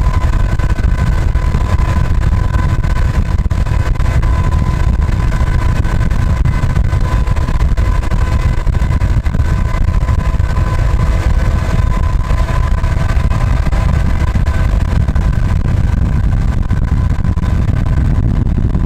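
Canadian Pacific GE diesel freight locomotive running at speed, heard while pacing it from a moving vehicle alongside: a loud, steady low rumble of wind and road noise under an even, humming drone of several tones.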